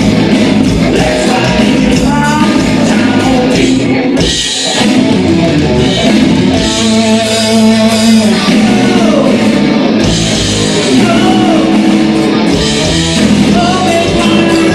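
Live rock band playing loudly: a Telecaster-style electric guitar and a drum kit, with singing. The music drops out briefly about four seconds in.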